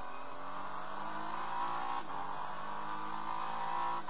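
Acura NSX GT3 race car's twin-turbo V6 heard from inside the cockpit, accelerating with its pitch rising, then upshifting about two seconds in and again near the end.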